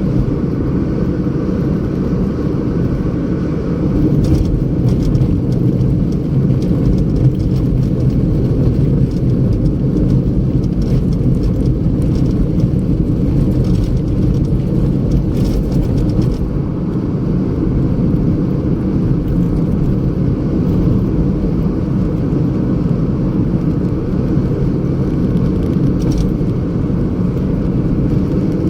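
Steady low rumble of a car on the move, with a few faint ticks over it.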